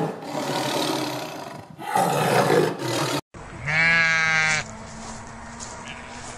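Two long, harsh calls from a large animal, then, after a cut, a sheep bleating once.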